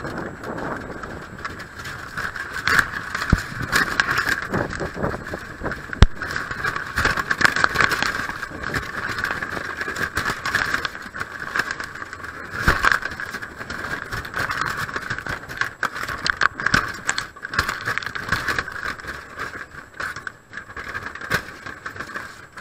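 Wire-mesh crab trap knocking and rattling as it is hauled up onto a pier, picked up by a camera strapped to the trap: a steady rushing noise with many sharp knocks and clicks, the sharpest about six seconds in.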